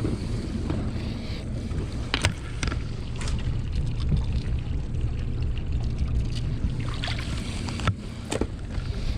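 Moving water rumbling and sloshing against the camera in a strong tidal current, with a few sharp clicks and knocks, the loudest about two seconds in and near the end.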